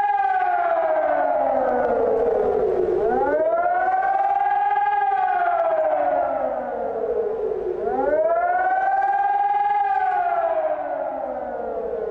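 Warning siren wailing as a tsunami alert: its pitch rises quickly, then falls slowly, in cycles about every four and a half seconds, about three of them.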